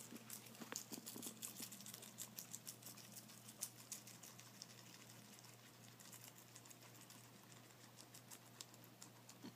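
Guinea pigs chewing lettuce and carrot: rapid, faint crunching and clicking bites, thickest in the first few seconds and thinning out later.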